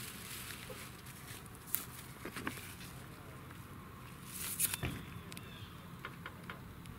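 Light rustling and scattered small clicks and knocks of someone handling gear, loudest in a short cluster about four and a half seconds in, over a faint steady outdoor hiss.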